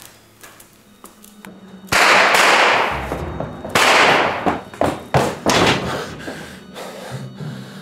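Sudden loud thuds. The first heavy impact comes about two seconds in and dies away over a second, a second one follows near four seconds, and then a run of shorter, sharper knocks.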